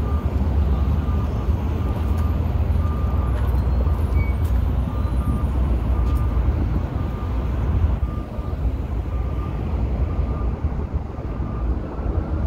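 Intermodal freight train led by BNSF diesel locomotives rolling past, a loud, steady low rumble, with a faint short tone repeating about once a second.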